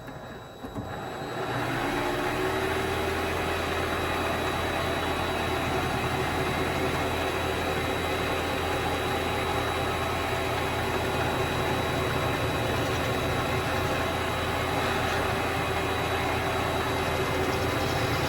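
Vevor MX400 mini lathe switched on: its motor spins up with a rising whine over a second or two, then runs steadily with a constant hum.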